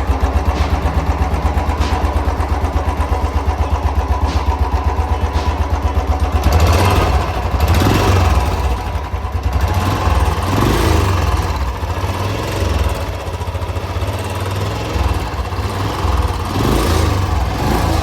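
Motorcycle engine running with an abnormal noise from inside the engine, the complaint behind a suspected misfire. It idles with an even rapid pulse, then is revved up and let fall back several times from about six seconds in.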